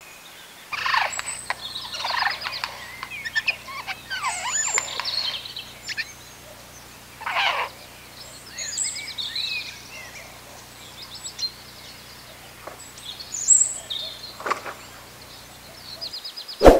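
Small songbirds chirping and twittering, with quick trills and short rising and falling calls, over a faint low hum. The birdsong stops just before a sharp, loud hit at the very end.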